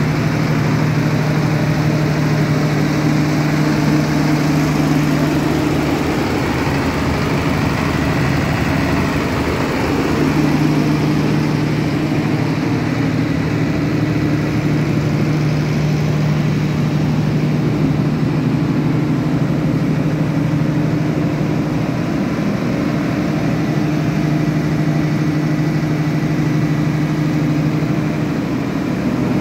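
Tsuzumi TDG-250 kVA silent-type diesel generator set, its six-cylinder turbocharged diesel engine running steadily inside the soundproof canopy with a constant low hum.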